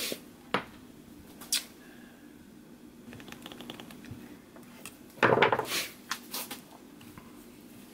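Light clicks, ticks and knocks as a caulked plastic dust-collector flange is handled and set into a clear acrylic router-sled base plate. A louder half-second handling clatter comes a little after five seconds in.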